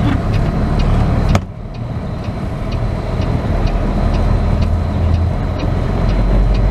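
Semi-truck diesel engine running at low speed, heard from inside the cab, with a sharp knock about a second and a half in. A light ticking repeats about twice a second, typical of the truck's turn signal.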